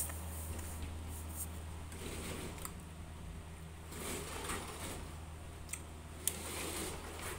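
Soft chewing and mouth sounds of eating a banana, with a rustle of the peel being pulled back near the end and a few sharp little ticks, over a steady low hum.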